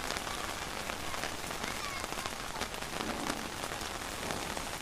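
Steady rain falling, with many separate drops striking close by through the even hiss of the downpour.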